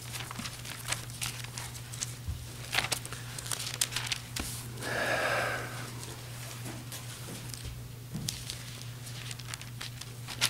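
Thin Bible pages being leafed through: soft, scattered paper crinkles and flicks, with one longer rustle about five seconds in. A steady low hum runs underneath.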